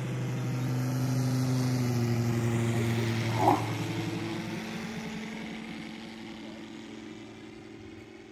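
NGH GF 150 engine of a 1/3-scale Sopwith Pup model biplane running at flying speed with its two-blade 32x10 propeller as the plane passes overhead: the drone swells, drops slightly in pitch about two seconds in, then fades as it flies off. A brief sharp sound about three and a half seconds in.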